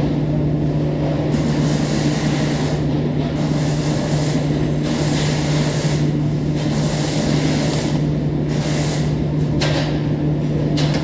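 Arc welding on galvanized iron: a steady low hum, with a hissing crackle that swells and fades several times.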